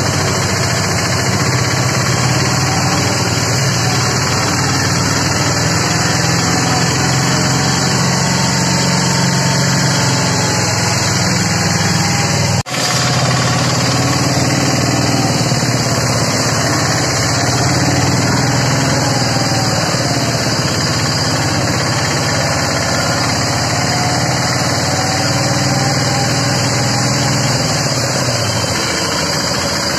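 Auto-rickshaw engine running steadily, heard from inside the auto-rickshaw as it drives through flood water. The sound drops out for a moment about halfway through and then carries on.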